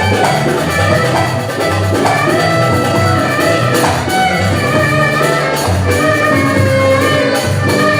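Instrumental passage of a Turkish uzun hava folk song: melodic instruments playing held and gliding notes, with no singing.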